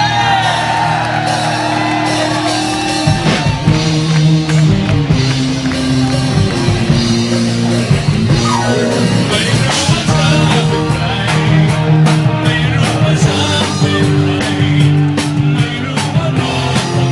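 Live rock band playing electric guitar and drums, with a male singer singing into a microphone over sustained chords and a steady drum beat.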